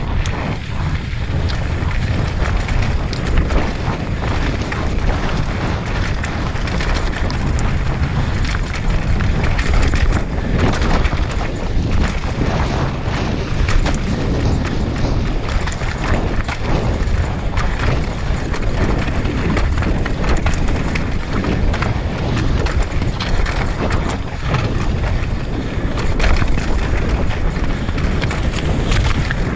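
Wind buffeting the microphone, with a downhill mountain bike's tyres rumbling over rock and loose gravel at speed and constant small knocks and rattles from the bike as it takes the rough ground.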